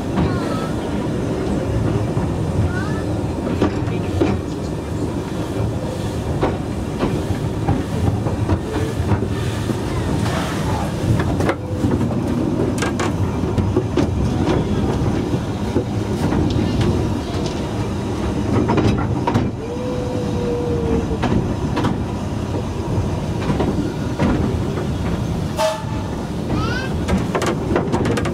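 Corris Railway narrow-gauge passenger coach running along the track: a steady rumble of the wheels on the rails, with frequent clicks over the rail joints.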